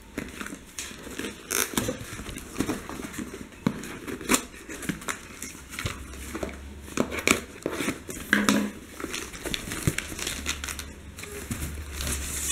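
Scissors snipping through a taped paper mailer, with crinkling and tearing of the paper and packing tape in irregular short snips and rustles.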